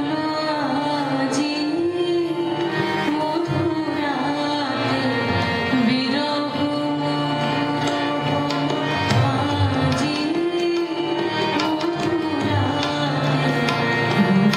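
Live Bengali song: a woman sings a slow, ornamented melody to harmonium and tabla accompaniment, with the drum strokes sounding in a steady rhythm beneath the voice.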